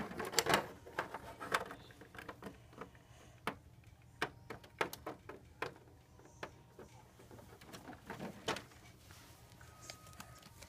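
Irregular small clicks and taps of a plastic doll and dollhouse being handled, with a few louder knocks scattered through, over a low steady hum.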